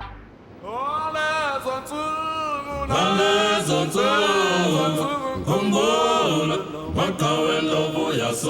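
Voices singing, apparently unaccompanied, in long phrases like a choir.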